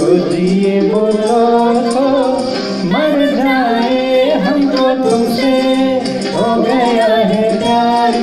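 Hindi film song sung over a karaoke backing track, the melody line bending in pitch above a steady low accompaniment.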